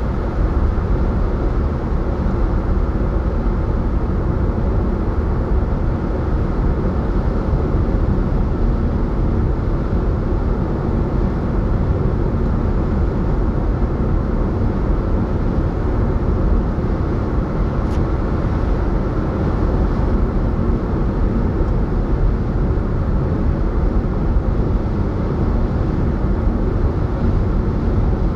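A car driving at steady speed on an open road: continuous tyre and engine noise, even throughout.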